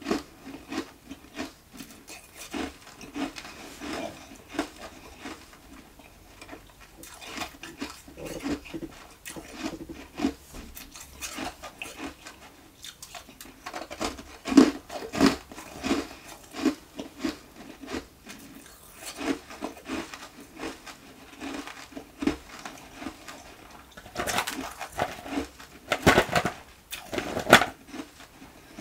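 Carbonated ice nuggets bitten and chewed close to a microphone: irregular crisp crunches one after another, with a louder, denser run of crunching near the end.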